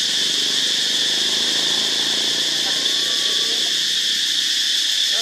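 Steady chorus of forest insects, a constant high-pitched buzz that holds without a break, with a faint low murmur beneath it.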